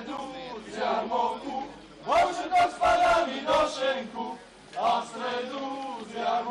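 A group of men's voices chanting a folk verse together in short phrases, some opening with a rising shout, with brief lulls between the phrases.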